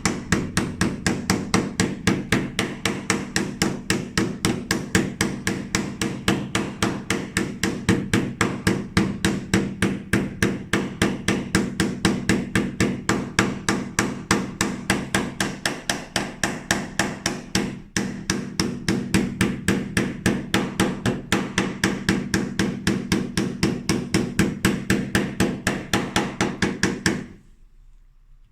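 Hammer striking rapidly and evenly, several blows a second, with a steady ringing under the strikes; the hammering stops suddenly near the end.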